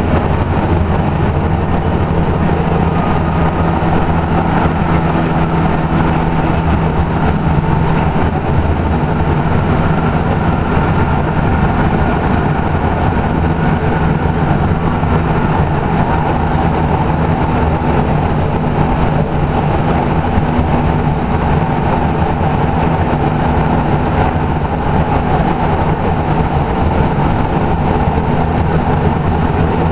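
Interior running noise of a 2011 Kinki Sharyo light rail car in motion: a steady low hum from the drive with continuous wheel-on-rail rumble and rushing noise.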